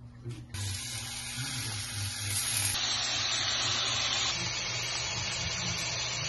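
Oil, garlic and a salmon fillet sizzling on a hot flat-top griddle: a steady dense hiss that starts about half a second in.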